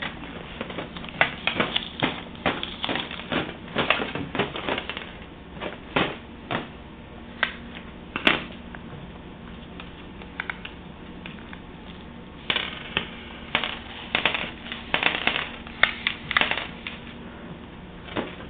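Irregular clicking and tapping in quick runs, with a lull of a few seconds just past the middle.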